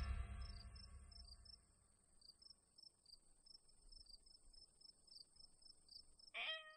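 Crickets chirping at dusk, faint: one steady high trill, with another chirping a few times a second beneath it. The last notes of a struck, chime-like music fade out in the first second or so, and a short pitched sound is heard near the end.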